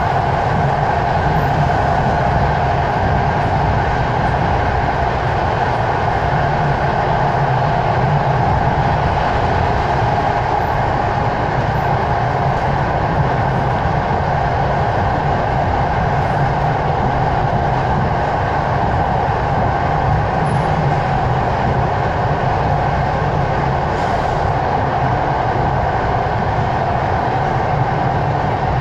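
Passenger train running at a steady speed, heard from inside the carriage: a continuous, even rumble of wheels and running gear with a constant hum over it.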